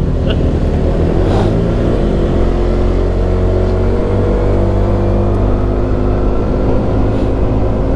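Motorcycle engine pulling on the open road under throttle, its pitch rising a little about a second in and then holding steady, with a deep wind rumble on the microphone.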